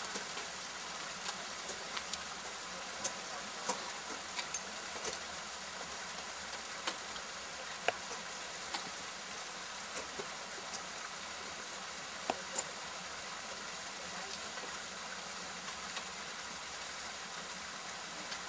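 Ice axe picks and crampon points striking waterfall ice: irregular sharp ticks, about a dozen, over a steady hiss.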